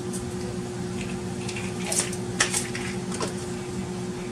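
A few light clicks and knocks of items being handled, about two to three seconds in, over a steady electrical hum.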